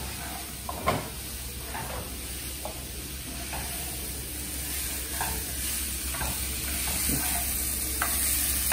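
Celery, broccoli and mushrooms sizzling in hot chilli oil in a wok while a spatula stirs them, with irregular scrapes and knocks of the spatula against the pan, the strongest about a second in. The sizzle grows slightly louder toward the end.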